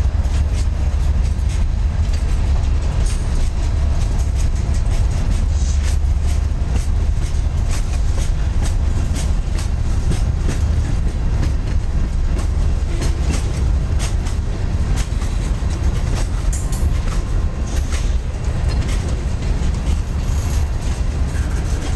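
Freight cars of a mixed freight train, tank cars and boxcars, rolling past close by: a steady low rumble with frequent wheel clicks and clanks.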